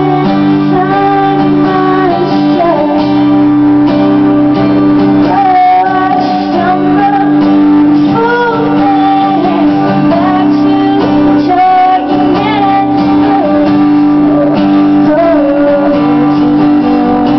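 A woman singing to her own strummed acoustic guitar, the sung melody over steady sustained chords.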